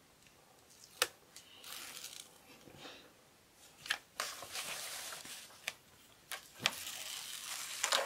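Plastic cover film on a diamond painting canvas being handled and peeled back off the adhesive, rustling and crackling in several stretches with a few sharp clicks in between.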